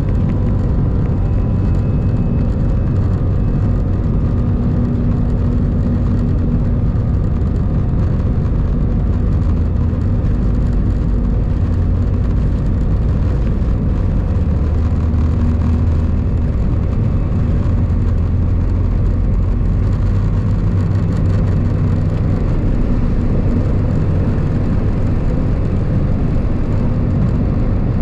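Airbus A319 engines at takeoff thrust, heard from a cabin seat over the wing, with runway rumble during the takeoff roll and on through liftoff into the climb. A loud, steady noise, heaviest in the low range.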